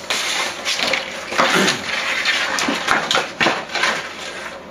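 Rustling, crackling and light clatter of thin wood veneer sheets being handled and set down, in a run of short, irregular knocks.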